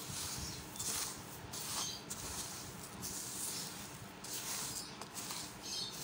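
Dry bird seed (proso millet, canary seed and foxtail millet) rustling and shifting as it is stirred together by hand, a dry rustle that swells and fades every second or two.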